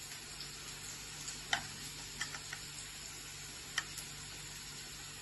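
Faint steady sizzle of onion and capsicum sautéing in a pan, with a few light clicks from a knife cutting mushrooms over a small ceramic bowl. The sharpest clicks come about a second and a half in and near four seconds.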